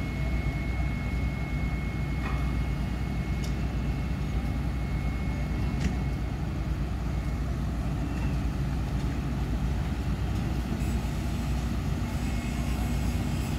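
Diesel engines of heavy cranes running steadily as they hold a steel bridge girder, a low, even drone with a few faint metallic clicks.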